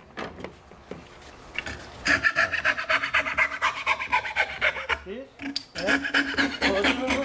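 Magic Saw, a hand saw with a thin wire blade, rasping through a wooden board in rapid back-and-forth strokes while cutting a curve. The sawing starts about two seconds in and stops briefly near five seconds before going on.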